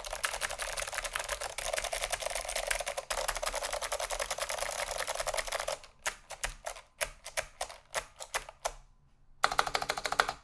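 Leading Edge DC-2014 keyboard with clicky SKCM Blue Alps switches, in a polycarbonate case with a steel plate and no dampening foam, being typed on fast, loud and clattering. About six seconds in the typing slows to separate keystrokes, then a short burst of fast typing comes near the end.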